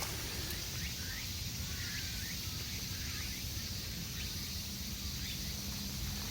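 Outdoor ambience: a steady high-pitched insect chirring with a few faint short bird calls over a low background rumble.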